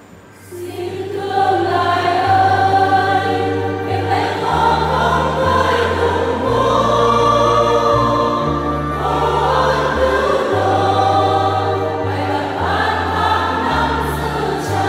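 Church choir singing a Vietnamese Catholic hymn in many voices over an accompaniment of held low bass notes that change step by step. The voices come in about half a second in, after a brief lull.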